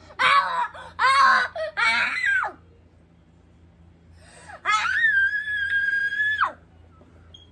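A young child's high-pitched squeals: three short excited bursts, then after a pause one long held shriek that drops away at the end.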